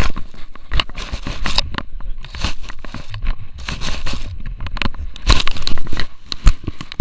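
Irregular rustling, scraping and crackling from a Xiaomi Yi action camera on a French Bulldog's harness as the dog moves through long grass: grass blades and fur rub against the camera and its microphone, with short knocks. The knocks are loudest a little past the middle.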